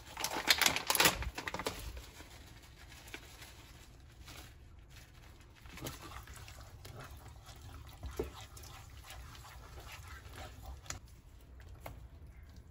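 A plastic bag of grated cheese crinkling as it is emptied into the pot during the first second or so. Then a wooden spatula stirs thick cheese sauce in a stainless-steel pot, with soft scrapes and occasional taps.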